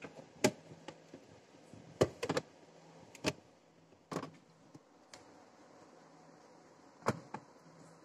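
Plastic storage box handled and set back onto a refrigerator shelf: about half a dozen short, sharp clicks and knocks of plastic against the shelf, spread out with quiet gaps between.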